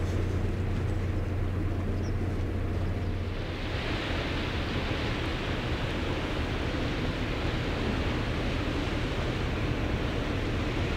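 Steady outdoor wind-and-water hiss with a low steady drone from a passing cargo ship's engine. About three and a half seconds in, the drone weakens and the hiss becomes brighter.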